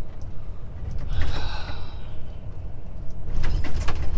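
Truck cab rumbling and rattling as it drives over a badly broken road, the cab interior creaking and shaking. A squeak and creak come about a second in, and a burst of rattling clatter comes near the end.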